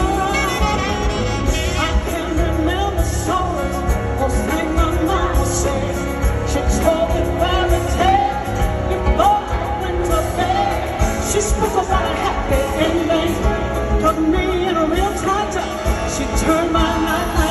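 Live band music with a woman singing into a microphone over it, picked up from the audience of an arena concert.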